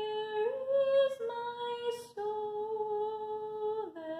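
A woman humming a slow tune in long held notes, the pitch stepping up and down every second or so, with a brief break about two seconds in.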